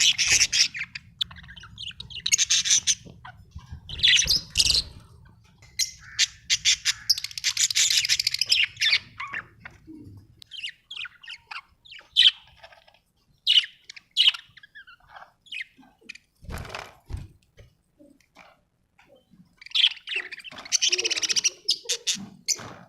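Budgerigars chattering and chirping in bursts of rapid high calls, with quieter single chirps between the bursts. A low hum underneath stops about halfway through.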